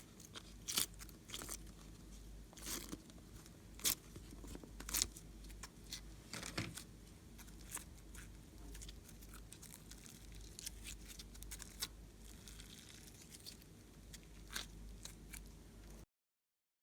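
Slime being squeezed and poked by hand, giving irregular crackling clicks and pops, some close together, others a second or more apart. The sound cuts off to dead silence near the end.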